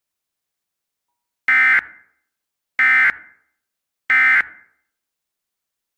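Emergency Alert System end-of-message (EOM) code: three short, buzzy digital data bursts about 1.3 seconds apart, each about a third of a second long. They signal the end of the alert.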